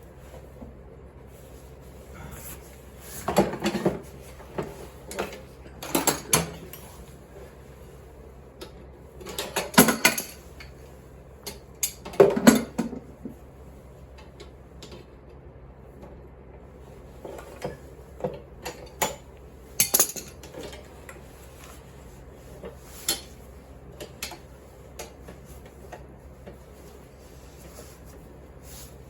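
Metal parts and hand tools clanking and clinking as a steel handle is fitted to a Lawn Boy 5247 push mower, with several loud clatters in the first half and lighter scattered clicks later.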